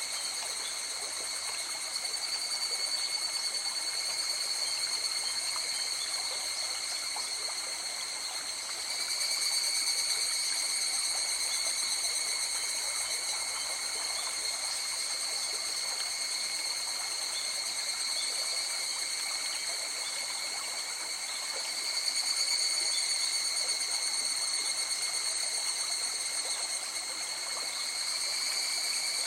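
River water flowing steadily. A continuous high-pitched ringing lies over the rushing sound, and both swell gently a few times.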